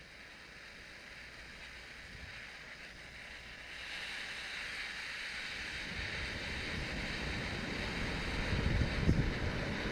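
MSR Pocket Rocket 2 canister stove burning under a titanium pot of water being heated to a boil, a steady hiss that grows louder from about four seconds in. Low wind rumble on the microphone underneath.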